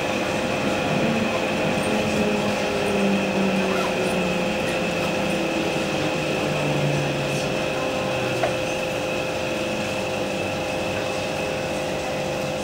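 Cabin sound of a Kawasaki C151 EMU slowing down: the low running tones fall in pitch and fade out about eight seconds in, over a steady hum, as the train comes to a stop.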